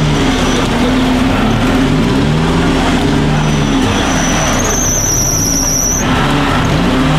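Off-road 4x4 engine revving up and down over and over under heavy load, with a thin high whine through the middle that cuts off suddenly.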